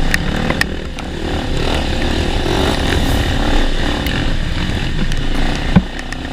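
Honda Tornado 250 trail bike's single-cylinder engine running under way on a dirt trail, with a few sharp knocks, the loudest near the end.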